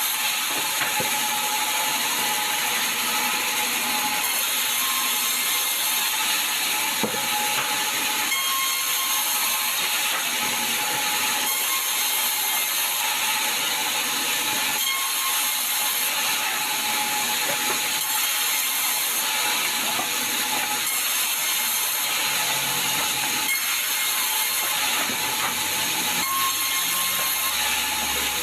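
Sawmill saw running steadily through a sengon log, a constant high hissing whine with faint mechanical rattling.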